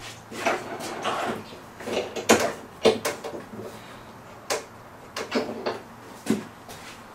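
Steel bar clamps being adjusted and tightened across a freshly glued-up panel of scaffold boards: irregular metal clunks, clicks and short scrapes, about a dozen in all.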